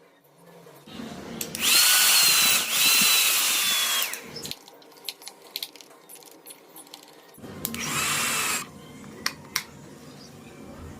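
A small electric motor whining at high speed in two bursts, the first about two seconds long, the second about a second long, with a rushing hiss under the whine.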